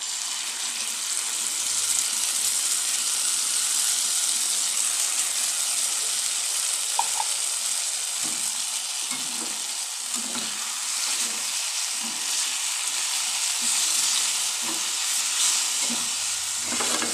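Canned sardines in tomato sauce hitting a hot wok of fried banana pieces and sizzling loudly and steadily. From about halfway through, a spatula stirs the mix, adding irregular scrapes and knocks against the metal wok.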